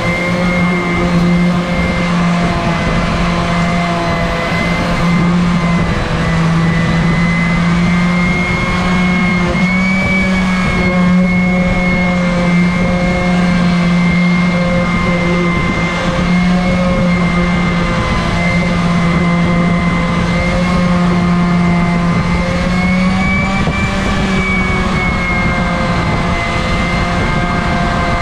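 Random orbital sander running steadily against a cork block: a constant motor hum with a higher whine whose pitch wavers slightly as the pad is worked over the surface.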